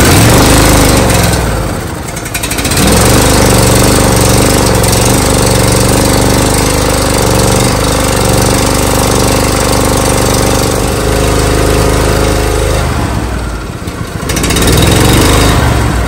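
26 hp Briggs & Stratton V-twin lawn tractor engine running loud and fast on fuel poured into the carburetor with the choke on. It sags twice, about two seconds in and again near the end, and picks back up each time.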